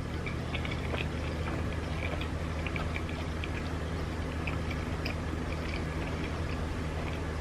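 Faint wet chewing and mouth clicks from eating sushi, scattered irregular ticks over a steady low hum.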